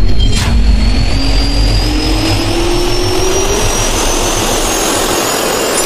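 Jet-turbine spool-up sound effect: a rising whine over a rushing hiss and low rumble, climbing steadily in pitch, with a short click about half a second in.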